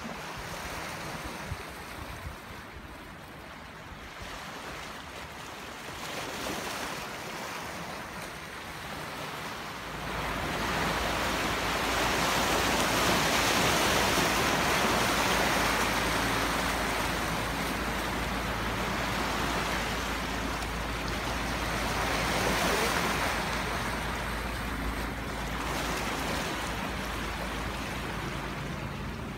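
Rough sea surf washing and breaking, with wind buffeting the microphone; it grows much louder about ten seconds in and stays loud.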